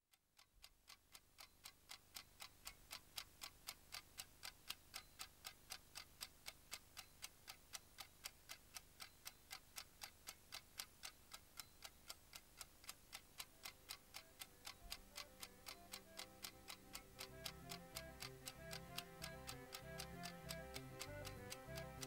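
Steady clock-style ticking, about four ticks a second, fading in at the start, with soft music under it; a bass line and a melody join in over the last few seconds.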